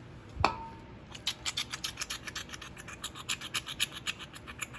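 A single knock with a brief ring about half a second in, then rapid scrubbing strokes, about five a second, as a lawnmower carburetor part is cleaned by hand.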